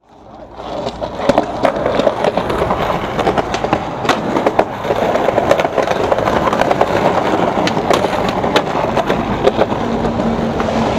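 Skateboard wheels rolling on concrete sidewalk: a steady rolling rumble with many sharp clicks as the wheels cross pavement seams, fading in at the start. A low steady hum comes in near the end.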